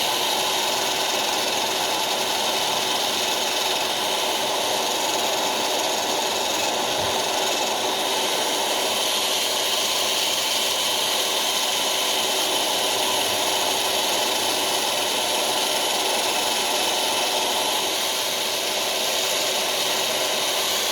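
Electric drill running steadily, spinning and scrubbing an old spark plug clean to recondition it.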